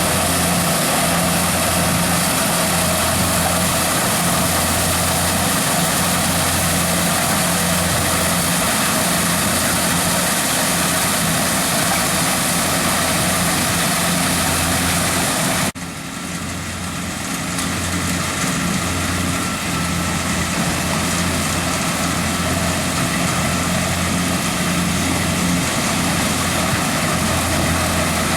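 Corn combine harvester with a built-in sheller running steadily: a low engine hum under a dense, hissing clatter of the harvesting and shelling machinery. About halfway through the sound drops suddenly and then builds back up over a few seconds.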